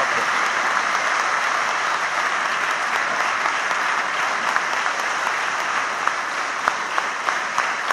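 A large audience applauding, a dense steady clapping that thins out near the end so that single claps stand out.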